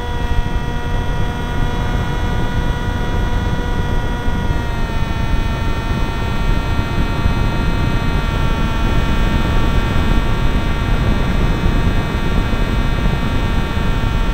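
Onboard sound of a Zagi v4 RC flying wing in flight: the steady whine of its motor and propeller, shifting slightly in pitch about five seconds in, over heavy wind rush on the camera's microphone.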